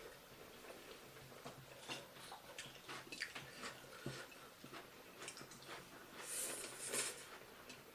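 Close-miked eating sounds: chewing and mouth noises with scattered small clicks, as people eat pork momo and chow mein, and a louder noisy burst about six and a half seconds in.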